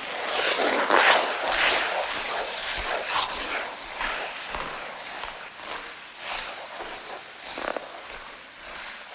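Ice skate blades scraping and carving across ice in a run of hissing swishes, loudest about a second in.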